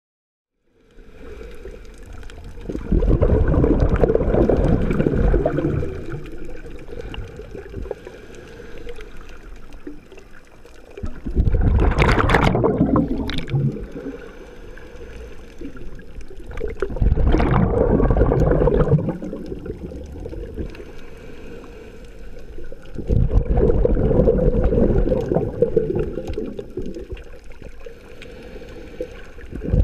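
Sea waves washing ashore, in slow surges that swell and fade about every six seconds with a quieter wash in between.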